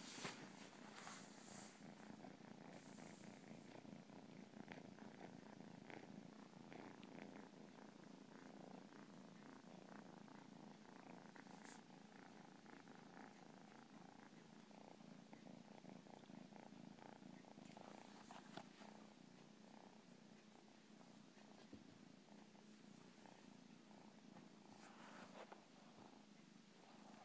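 Domestic cat purring steadily and softly, with a few brief rustles now and then.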